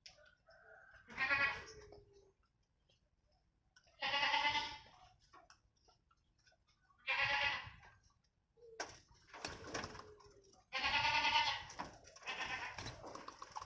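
Repeated animal calls, each lasting under a second with a wavering pitch, coming about every three seconds.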